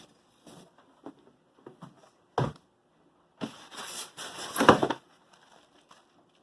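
Packaging being handled while a tool is unboxed: light clicks and a sharp knock, then a stretch of rustling and scraping with a loud bump near the end.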